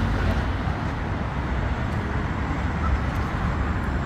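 Steady city street traffic noise from passing cars.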